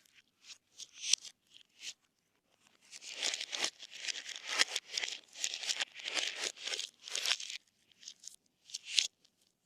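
Slime being mixed and pulled by hand, making sticky crackling and tearing sounds: a few scattered crackles, then a dense run of crackling from about three to seven and a half seconds in, and a few more crackles near the end.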